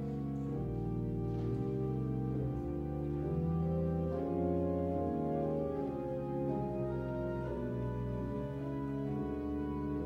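Slow instrumental keyboard music: sustained organ-style chords that change every second or so.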